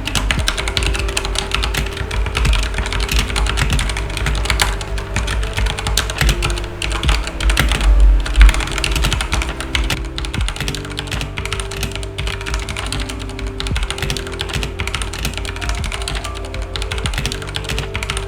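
Redragon K552 mechanical keyboard with red linear switches being typed on fast, a dense, continuous clatter of keystrokes.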